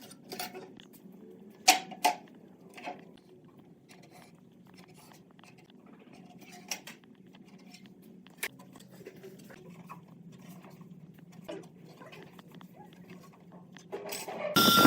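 Scattered light clicks and knocks of wood and tools being handled on a workbench, the loudest two close together about two seconds in. Just before the end, a loud power tool starts up with a steady whine.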